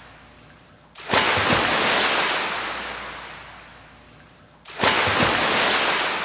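Ocean waves breaking on a shore: a wave surges in about a second in and another near the end, each washing up suddenly and then slowly fading away.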